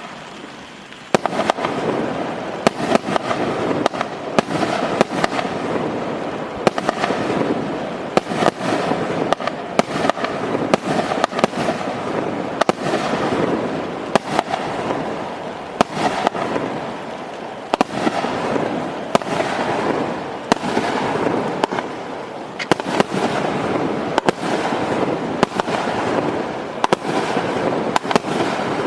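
A 36-shot, 1-inch-calibre firework cake firing in sequence after starting about a second in: sharp shots come roughly once a second, with a steady crackle between them.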